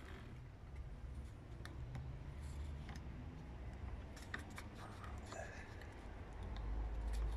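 Coil winding machine winding copper wire onto a transformer bobbin: faint scattered clicks and ticks over a low steady rumble, which swells near the end.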